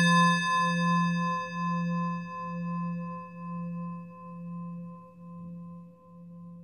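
Singing bowl ringing after a single strike, a low hum with higher overtones, slowly fading with a steady wavering pulse about once a second.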